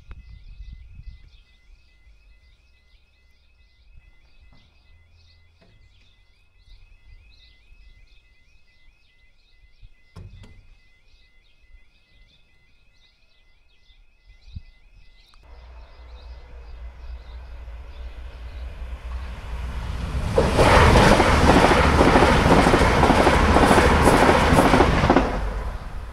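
UK level crossing warning alarm sounding a rapid repeating warble while the barriers come down; the alarm stops about fifteen seconds in. A train then approaches with a rising rumble and passes loudly over the crossing for about five seconds before fading near the end.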